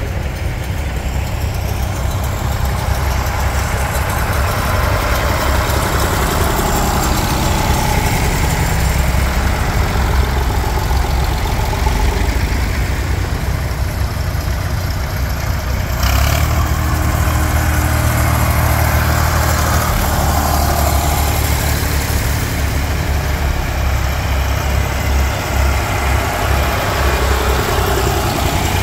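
A heavy engine running steadily at a low, even pace, its sound shifting abruptly about halfway through.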